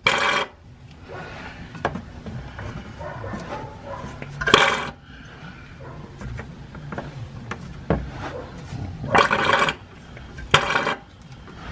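Hand-operated fluid transfer pump drawing old gear oil out of a 1984 Corvette's rear differential through a hose. It gurgles with four short, loud surges, one at the start, one about four seconds in, and two close together near the end.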